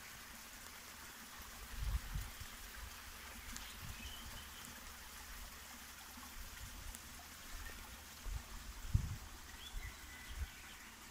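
Faint, steady outdoor hiss of a garden, with a few soft low thumps from the phone being carried and a few faint bird chirps.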